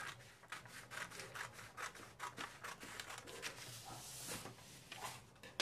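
Scissors cutting through brown kraft pattern paper in a quick run of snips. About four seconds in, the cut strip rustles as it comes away.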